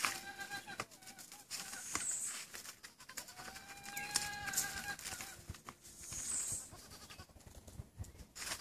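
Goats bleating, with two long, even calls, one just ending at the start and one about four seconds in. Sharp knocks come through as they butt heads, the loudest about four and a half seconds in.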